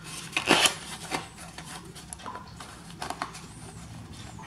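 A small zippered fabric pouch being handled, with fingers working its zipper pull: a few short rustles and small clicks, the strongest about half a second in.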